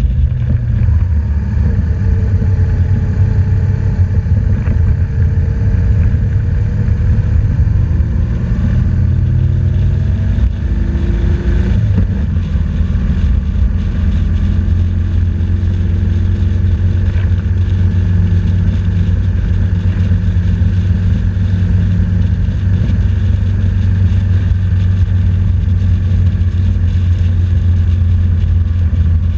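BMW R1200GS flat-twin engine running on the move under the rider, with a deep steady rumble. Its note rises and falls through the first dozen seconds or so, then holds steady.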